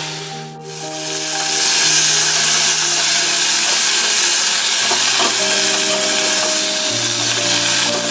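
Cauliflower florets frying in hot mustard oil: a steady, dense sizzle that fades in about a second in. Background music with long held notes plays underneath.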